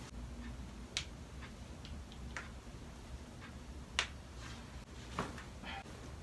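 A few sharp, separate clicks: two louder ones about a second in and about four seconds in, with fainter ticks between them.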